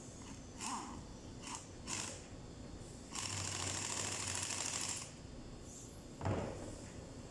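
Pneumatic impact wrench hammering steadily for about two seconds, tightening a bolt on a forklift hydraulic pump, after a few short knocks. About a second later comes one loud thump as the wrench is set down on the wooden bench.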